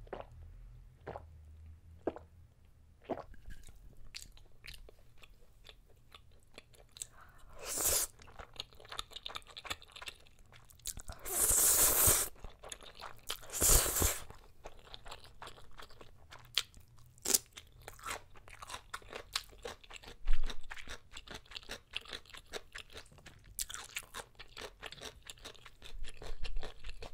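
Close-up eating sounds: a few swallows of a drink at the start, then loud slurps of black bean ramen noodles, the longest about 11 seconds in, between stretches of chewing with small wet clicks.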